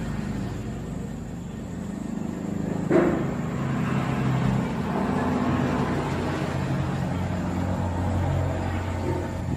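A motor engine running steadily with a low hum, and a single sharp click about three seconds in.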